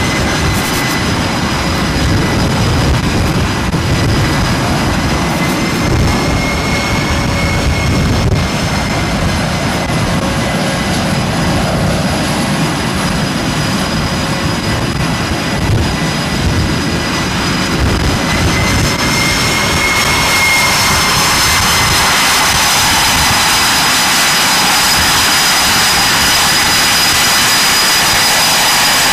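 F/A-18 jet engines running at close range: a steady rush with a high turbine whine that rises briefly in pitch twice. About two-thirds through, the sound grows slightly louder and the whine holds steady.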